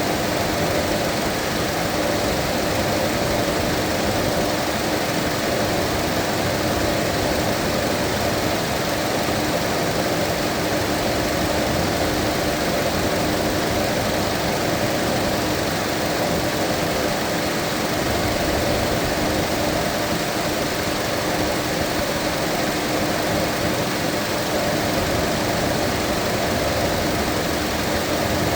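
Mazda 2.5 engine idling steadily with a steady hum, while air is bled from its cooling system.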